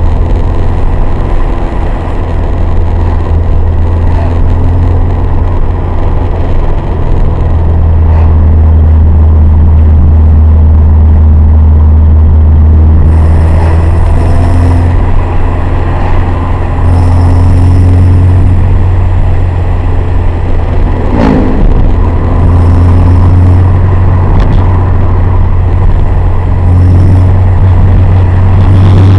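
Honda Civic Type R (FD2) exhaust with the engine running, a steady low drone, and a hiss that comes and goes several times in the second half. One brief sharp sound about two-thirds of the way through.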